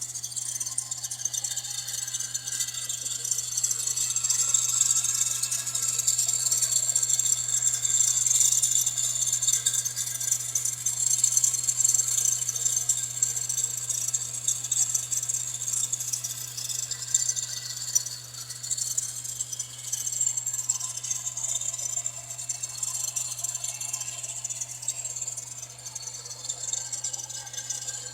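Subaru Pleo engine running with a high metallic rattling chatter from a failing tensioner pulley bearing, over a steady low hum. The rattle grows louder a few seconds in and eases off in the second half.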